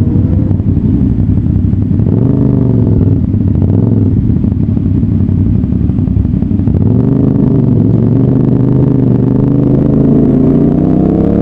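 CF Moto 450SR-S parallel-twin motorcycle engine under way, its pitch rising and falling a few times as the throttle is worked, then climbing steadily near the end as the bike accelerates.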